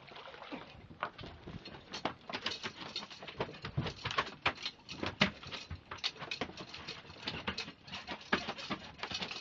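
A gaff and a freshly landed halibut knocking and slapping against an aluminium boat and a fish box: a run of irregular knocks and taps that grows busier about two seconds in.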